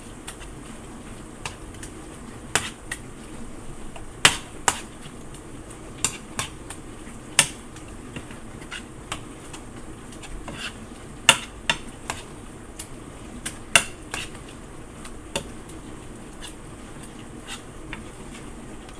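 A utensil is clicking and knocking against a skillet while shredded chicken, cream cheese and sour cream are stirred together over low heat. Sharp irregular knocks come about once a second over steady background noise.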